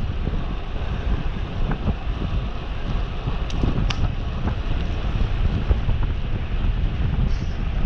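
Wind buffeting the microphone of a rider on a moving fixed-gear bicycle: a steady, heavy low rush, with a couple of faint short ticks a little before halfway.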